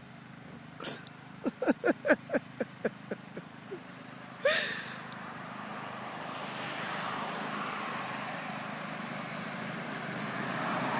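Riding lawnmower engine, fitted with dual glass-pack mufflers, coming closer and growing steadily louder over the second half. It is preceded by a click and a quick run of short, sharp pitched sounds that fade away.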